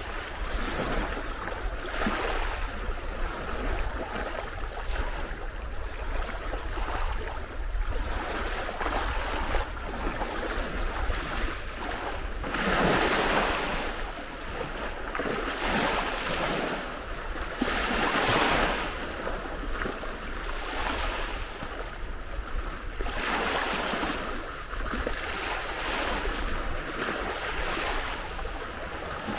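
Small waves breaking and washing up a sandy beach, swelling louder every few seconds, with a steady low rumble of wind on the microphone.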